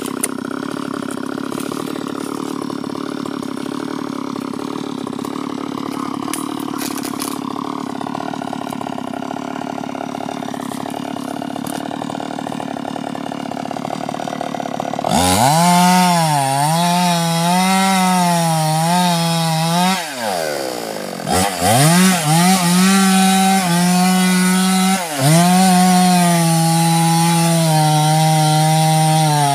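Two-stroke chainsaw cutting through the trunk of a rubber tree. It is fainter and steadier in the first half, then loud and close at full throttle from about halfway, its pitch sagging and recovering as the chain bites into the wood, with one sharp dip and recovery about two-thirds of the way through.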